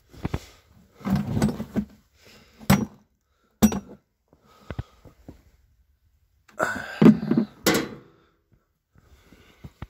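Hollow knocks, thunks and scraping as a blue plastic drum is lifted and bumped against a tractor's sheet-metal hood. There are two longer stretches of scraping and rustling and several separate sharp knocks, the loudest near the end. The engine is not running.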